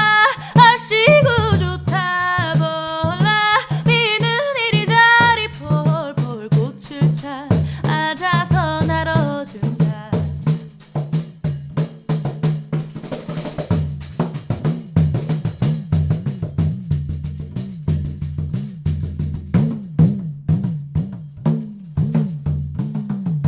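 A woman singing a traditional Korean song over a pandeiro for about the first ten seconds, then the pandeiro playing alone: fast jingle strokes over deep bass tones that bend in pitch.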